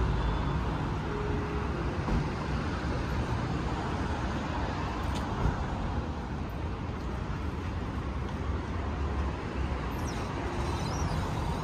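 City street traffic noise: a steady low rumble of cars and buses going by.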